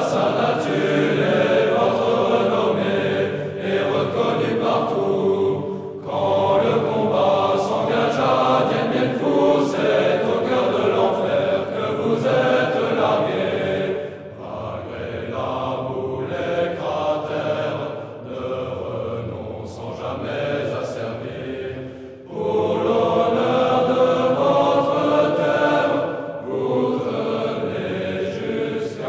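Choir singing a French military promotion song (chant de promotion) in phrases. It grows softer partway through, then comes back at full strength about seven seconds before the end.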